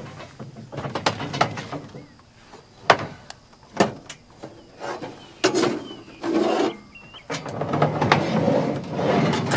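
Camping gear being handled in a pickup truck bed under a cap: several sharp knocks and clunks of items and containers set down and moved, with rustling and scraping as things are slid out, busiest near the end.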